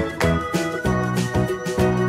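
Upbeat background music with keyboard-like notes and a steady, bouncy beat.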